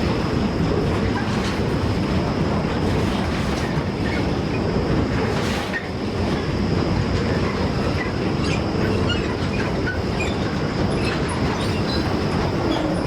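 Freight train wagons rolling past, a steady heavy rumble of steel wheels on the rails with scattered brief high wheel squeals.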